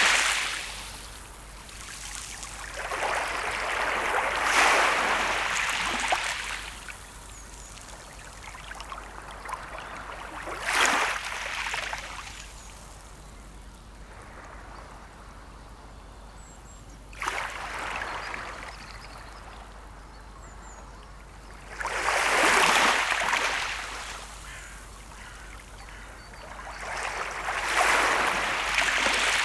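Small sea waves breaking and washing up the shore: a rush of surf swells and fades about every five to seven seconds over a steady, quieter wash of water.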